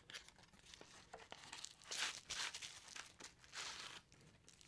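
Faint crinkling and rustling of bubble wrap and a cardboard box as a boxed watch is opened and slid out of its bubble wrap, in a few short rustles with light clicks.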